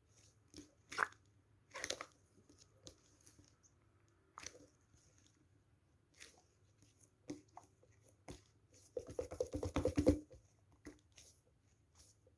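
Squishy toy being squeezed and handled: scattered soft crinkly clicks, then a second or so of rapid crackling about nine seconds in.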